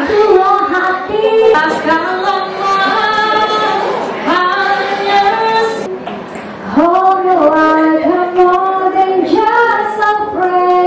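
A woman singing unaccompanied into a handheld microphone. She holds long notes with vibrato and slides between pitches, with a short pause about six seconds in.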